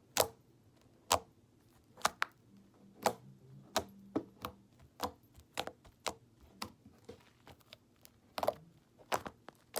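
Sticky homemade slime being squeezed and pressed by hand, giving sharp pops and clicks, about one a second at first and coming more often after the first few seconds.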